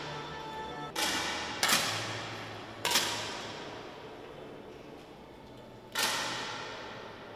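10-metre air rifles firing on an indoor range: four sharp shots at uneven intervals, each trailing off in a long echo.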